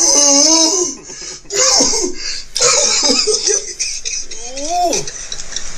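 A man laughing hard in several bursts, with a laugh that rises and then falls in pitch near the end.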